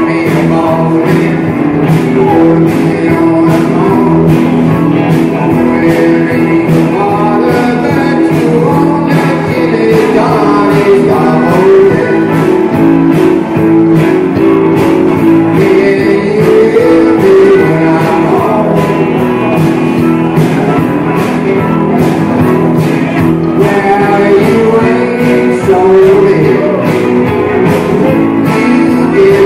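A live rock and roll band playing a song: guitar and a steady drum beat, with a singer.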